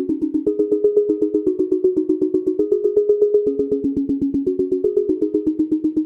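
Cherry Audio Quadra software synthesizer, an emulation of the ARP Quadra, playing a fast arpeggio of short notes with few overtones, about eight notes a second, stepping up and down among a few pitches.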